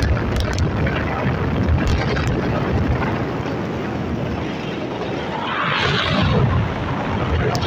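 Wind buffeting and road noise of a car driving along an open road, a steady low rumble with a louder hissing rush that swells briefly about six seconds in.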